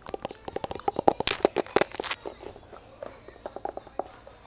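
Slime being squished and poked by hand, making quick irregular sticky clicks and pops, thick in the first two seconds and thinning out after.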